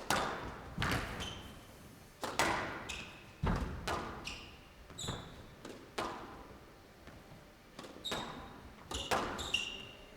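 Squash rally: the ball cracks off rackets and court walls in irregular sharp strikes, echoing in a large hall, with short high squeaks of court shoes on the floor.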